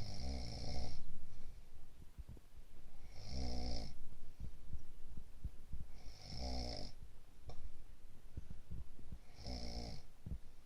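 Heavy snoring from a sleeper with a cold: four rasping snores, each under a second long, about three seconds apart, with quieter breathing and faint crackles between them.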